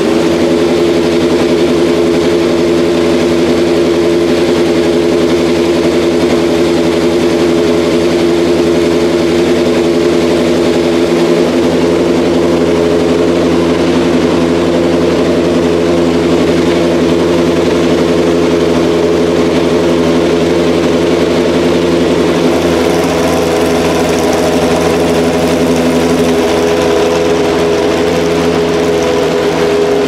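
Naturally aspirated racing V8 of a single-seater formula car idling steadily in the pit box while being warmed up, with an even, unchanging engine note and no blips of the throttle.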